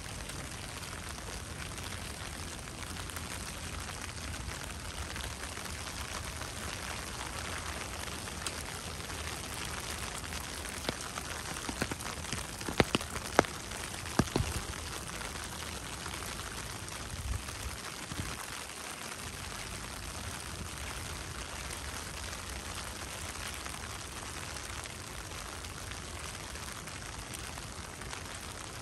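Steady rain falling, an even hiss, with a handful of sharper ticks and taps clustered about halfway through.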